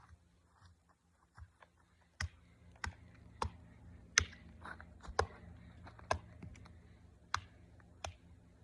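Hammer striking a tree trunk: a string of about eight sharp knocks, roughly one a second, beginning about two seconds in.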